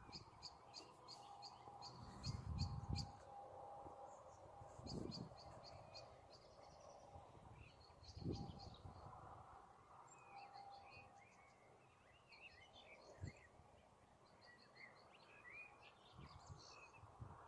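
Faint songbirds singing, with short high chirps repeated in quick runs and some softer warbling. A few brief low thumps break in now and then, the loudest about two and eight seconds in.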